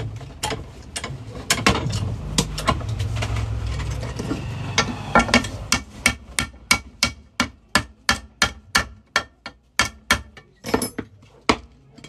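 Hammer blows on metal. The first few seconds bring irregular strikes, then a steady run of about three blows a second, each with a short metallic ring.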